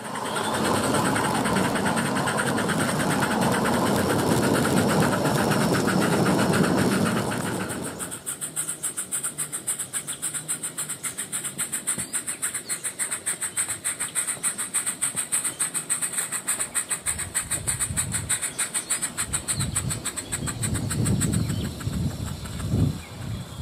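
Electronic steam-exhaust chuffing from the Summerlands Chuffer sound unit in a garden-scale Hunslet narrow-gauge locomotive model, an even beat of about five chuffs a second. The first eight seconds hold a loud, steady rushing noise, and deeper rumbles join in near the end as the locomotive comes close.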